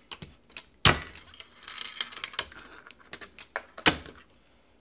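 Plastic housing of a Hornady Rapid Safe shotgun wall lock clicking and knocking as it is handled and pressed down on a wooden desk. There are many small clicks and two louder knocks, about a second in and near the end.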